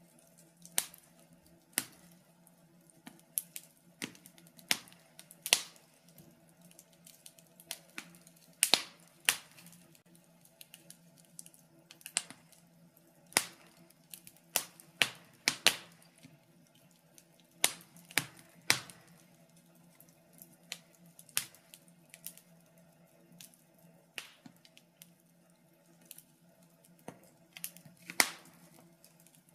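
Wood fire burning in a fireplace, crackling and popping at irregular intervals, some pops sharp and loud, over a faint steady low hum.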